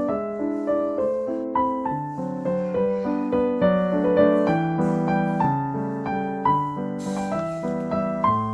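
Background piano music, a gentle run of single notes and chords; a faint hiss joins in near the end.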